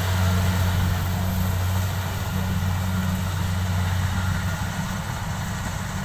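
Kubota combine harvester's engine running steadily as the machine cuts ripe rice, a low, even drone that eases a little near the end.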